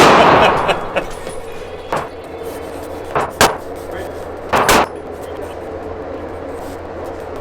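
Gunshots on a shooting range: a loud shot at the very start that rings out for most of a second, then a few more single shots between about two and five seconds in, over a steady background hum.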